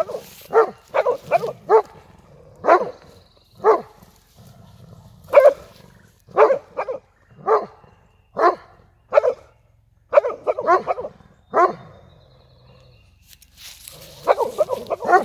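Golden retriever barking at a cow: sharp, repeated barks, sometimes one at a time and sometimes in quick runs of three or four. The barks pause for about two seconds near the end, then come back in a fast run.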